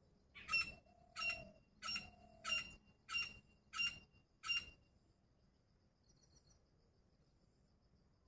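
Grey francolin giving a series of seven loud, harsh calls, evenly spaced at about one and a half a second, then falling silent.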